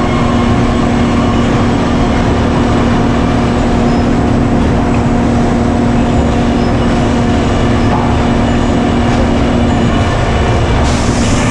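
Loud, steady machine drone with a constant low hum that does not change, and a short burst of hiss near the end.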